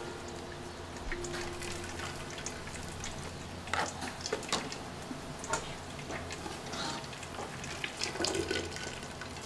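Water dripping and splashing from boiled mugwort as it is lifted out of a pot of hot water with long chopsticks and dropped into a bamboo colander, with a few light clicks and taps of the chopsticks.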